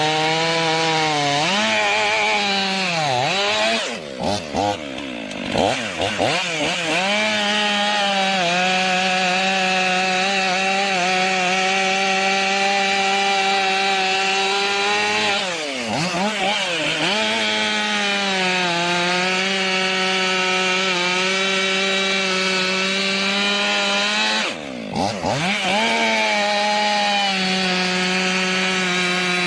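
Chainsaw running at high revs while cutting through wood, a steady high engine note. Its pitch briefly drops and climbs back three times: once a few seconds in, once about halfway, and once near the end.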